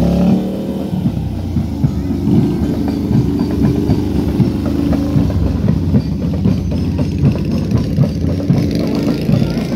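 Large touring motorcycle's engine running at a low, uneven, pulsing idle as it rolls slowly past close by.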